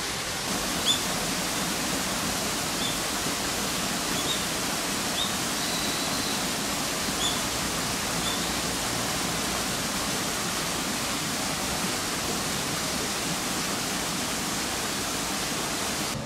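Steady rushing hiss of falling water, like a small waterfall running into a garden pond. A few short, high bird chirps come through it in the first half.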